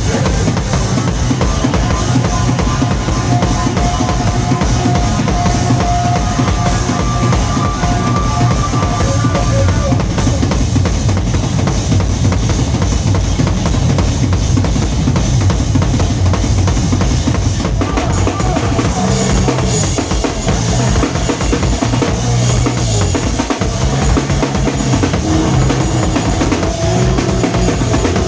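Live noise-rock from a drum-and-bass-guitar duo: a drum kit pounded fast and without a break, kick and snare under crashing cymbals, with a distorted bass guitar riff playing low stepped notes underneath.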